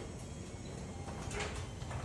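Garage door running along its tracks on new rollers: a steady low rumble, with a few clicks about a second and a half in.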